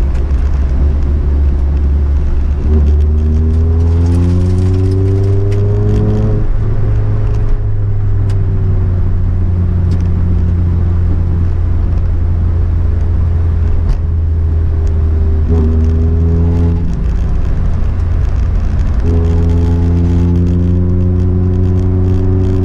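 Rally car engine heard from inside the stripped-out cabin, pulling up through the revs three times with a drop in pitch at each gear change, over a steady low road and tyre rumble.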